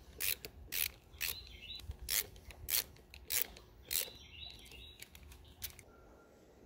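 Screw being driven through a small plastic strip-light retaining clip with a long-shanked driver bit: a run of sharp ratcheting clicks, about two a second, that stop near the end.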